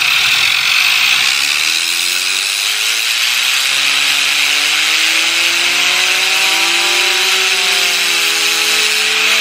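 Two cans of compressed-air duster spraying continuously through straw nozzles, a loud steady hiss. Under it, the whir of the air-driven fidget spinners climbs slowly in pitch as they speed up, levelling off near the end.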